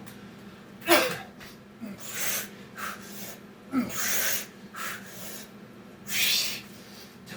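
A man breathing hard from exertion during burpee reps: about five loud, forceful breaths, some with a short falling grunt at the start.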